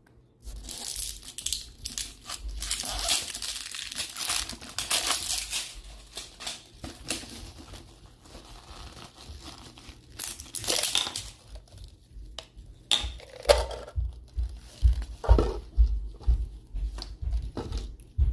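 Rubber-gloved hands handling a clear plastic ball ornament and pulling it apart, plastic rubbing and scraping against the gloves. A dense stretch of scraping runs for the first six seconds or so, then come scattered clicks and knocks, with heavier handling thumps near the end.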